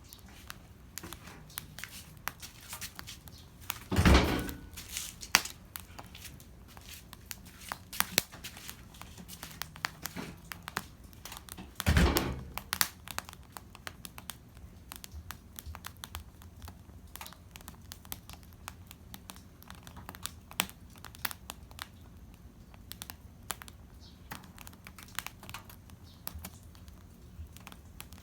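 Small wood fire crackling with many scattered short snaps and crinkles, with two louder muffled bumps about four and twelve seconds in.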